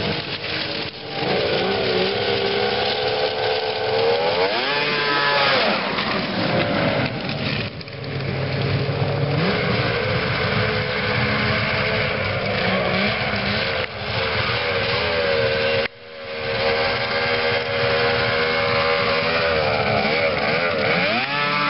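1997 Arctic Cat ThunderCat snowmobile's 900 cc three-cylinder two-stroke engine running hard, its pitch climbing steeply as the throttle is opened around five seconds in and again near the end as it passes close. The sound drops out abruptly for an instant about two-thirds of the way through.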